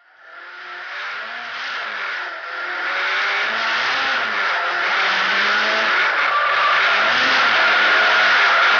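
Drift car heard from inside the cabin: the engine revs rise and fall as the throttle is worked, over a steady squeal of the tyres sliding sideways. It fades in over the first second or two, then holds loud.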